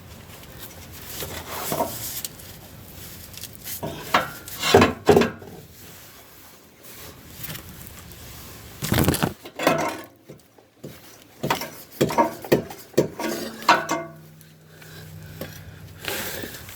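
Intermittent metallic clinks, knocks and clatter of hand tools and car parts being handled during exhaust manifold removal. A short, steady low hum comes in near the end.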